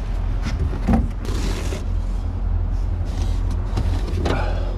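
Things being shifted and knocked about in an aluminum diamond-plate truck toolbox, including a cardboard box of shop towels being lifted. This goes over a steady low rumble of an idling engine.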